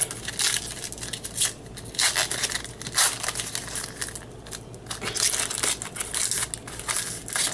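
Foil wrapper of a baseball card pack being torn open and crinkled by hand, in a run of uneven rustling bursts.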